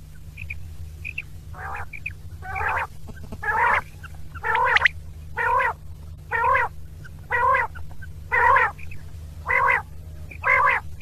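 Quail (batair) calling: short calls repeated about once a second, faint at first and louder from about four seconds in, over a steady low hum.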